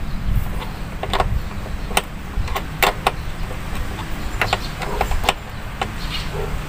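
Irregular sharp clicks and light knocks from hands and a tool working on the plastic and metal parts of an engine bay, refitting parts by the air cleaner with the engine off. A steady low rumble lies underneath.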